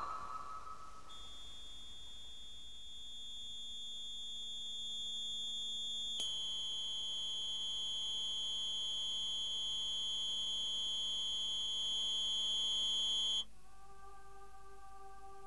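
A steady, high-pitched electronic tone with overtones comes in about a second in and grows slightly louder, with a small jump about six seconds in. Near the end it cuts off suddenly, and a quieter held chord of several lower tones takes its place.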